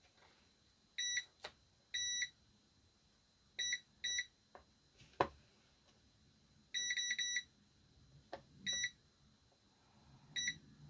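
Multimeter continuity beeper giving about ten short beeps of one steady pitch, some single and some in quick runs, as the test probes touch points on a circuit board. A few light probe clicks fall between the beeps. The beep signals a low-resistance path, which is how the multimeter flags a possible short.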